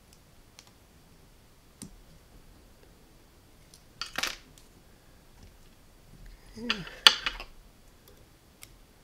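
Small fly-tying scissors snipping the tying thread about four seconds in. Around seven seconds there is a sharp metallic click and a short rattle as the scissors are handled by the vise.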